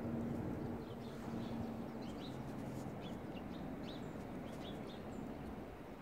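Small wild birds chirping: a scatter of short, high calls in the second half, over a steady low background rumble.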